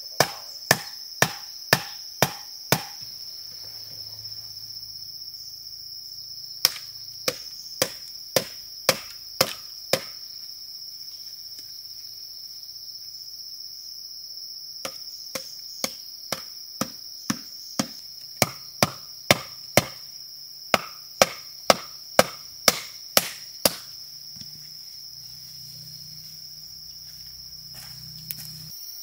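Repeated chopping strikes on wood, about two a second, in three runs with pauses between, over a steady high-pitched drone of insects.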